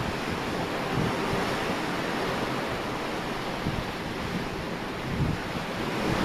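Sea rushing and breaking along the hull of a Viking longship replica under sail in rough water, with wind buffeting the microphone: a steady rush of water and wind.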